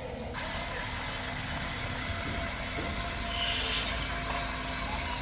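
Electric motors and plastic gearboxes of a Huina 1594 remote-control excavator whirring steadily, with a short high rasp about three and a half seconds in.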